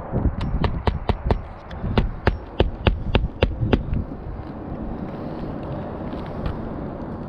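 A hammer driving roofing nails into an asphalt shingle: about a dozen quick, sharp strikes over the first four seconds, then they stop.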